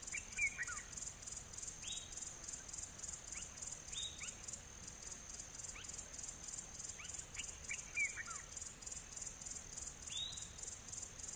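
A high insect chorus pulsing steadily about three times a second, with a bird giving short downward-sliding calls about every two seconds and a longer run of chirps twice.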